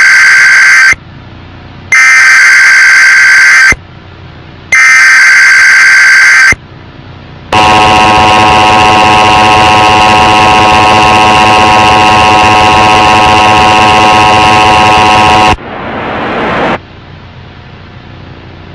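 Emergency Alert System tones: the end of one and then two more identical screeching data bursts of the SAME header, about a second apart, followed by the steady attention tone held for about eight seconds. It cuts off into a brief rising noise and then faint hiss.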